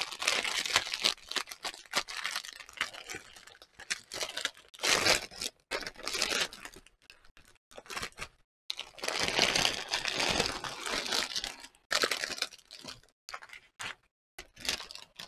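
Clear plastic sleeve and the small plastic bags of diamond painting drills inside it crinkling and rustling as they are handled and unrolled, in uneven bursts with short pauses.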